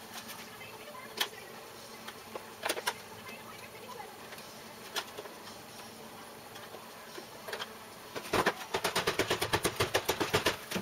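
Sharp metallic clicks and taps from sheet-metal work on a car body panel. A few single clicks come first, then a fast run of clicks lasts about two seconds near the end.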